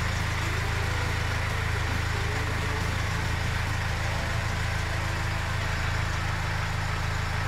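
Freshly swapped Subaru 2.0-litre boxer diesel engine idling with a steady low drone.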